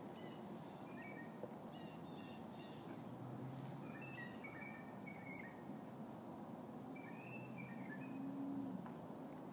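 Small birds chirping in short, repeated high notes over a steady low outdoor rumble; a low hum swells briefly near the end.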